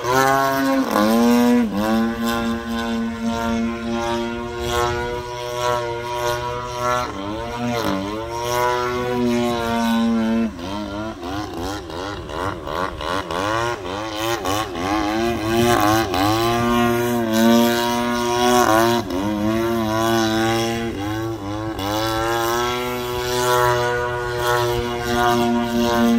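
GP76 engine turning a 24x9 Falcon propeller on a 92-inch Laser 200 RC aerobatic plane in flight. Its note drops and climbs in pitch again and again, with a stretch of quick rises and falls in pitch around the middle.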